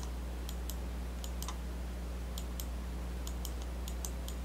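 Irregular, sharp clicks of a computer mouse and keyboard during CAD drafting, over a steady low electrical hum.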